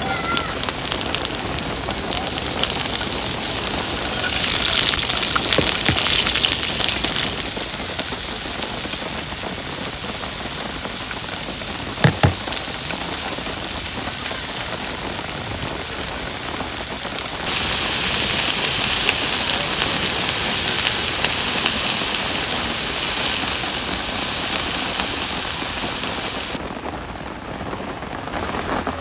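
Heavy rain falling: a dense, steady hiss that jumps abruptly louder or quieter a few times, with a single sharp tap about twelve seconds in.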